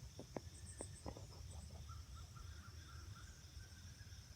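Faint outdoor ambience: a steady high insect drone over a low hum, with a bird's string of short repeated notes midway and a few sharp clicks in the first second.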